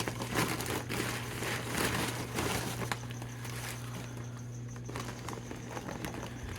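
Plastic shipping bag crinkling as it is handled and opened, busiest in the first three seconds, over a steady low hum.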